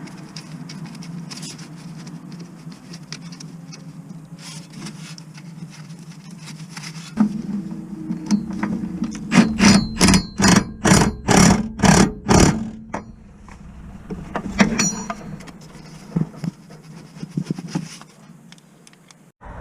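A steady low hum, with a run of about eight sharp knocks coming about three a second near the middle.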